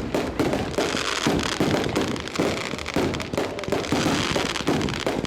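Aerial fireworks going off in a dense, continuous barrage of bangs and crackles.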